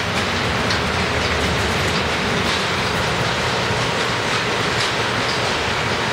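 Steady, loud industrial machinery noise with a faint scatter of small ticks on top.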